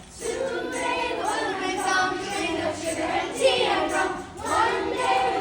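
Voices singing, with held and gliding notes.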